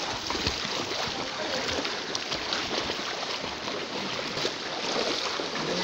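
Several people wading through calf-deep floodwater, a steady, irregular sloshing and splashing of water around their legs with each step.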